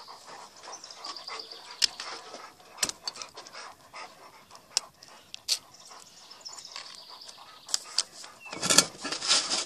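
An old dog panting, with scattered light clicks and taps throughout and a louder rustle near the end.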